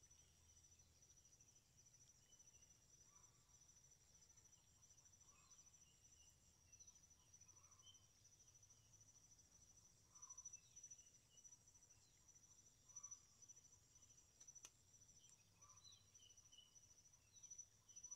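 Faint insect trilling: a steady, rapid, high-pitched pulsing, with faint short chirps every second or so and a single click about fifteen seconds in.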